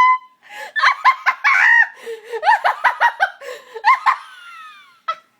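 Young women's high-pitched laughter in quick repeated bursts, trailing off in falling squeals about four and a half seconds in, with one short burst near the end.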